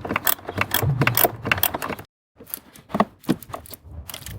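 Screwdriver undoing the screws that hold a car's blower motor control unit: a quick run of sharp clicks and scrapes of tool on screw and plastic, broken off by a short total gap about two seconds in.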